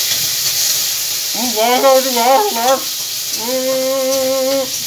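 Food sizzling and frying in a pan on a gas stove, with stirring; a steady hiss throughout. Over it a person's voice makes two wordless sounds: a wavering one a little over a second in, then a long held note.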